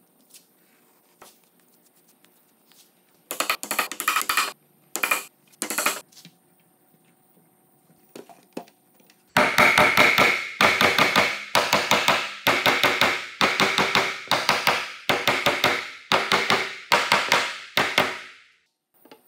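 Rubber mallet striking the top of a wooden table-leg frame, about two sharp blows a second for some nine seconds, driving the glued domino tenons home into the slab tabletop. Before that, a few short sputtering squirts as wood glue is squeezed from a plastic bottle.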